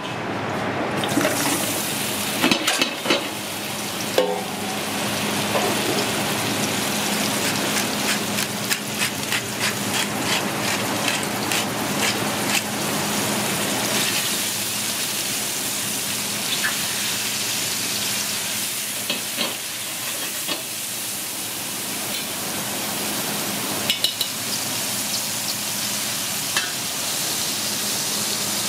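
A tied roll of meat and cremini mushrooms sizzling steadily in hot oil in a stainless steel pot. Metal tongs click and scrape against the pot, most often in the first half.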